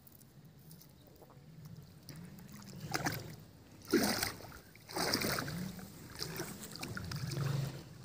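Legs wading into a shallow river, water splashing and sloshing with each stride; the loudest splash comes about four seconds in.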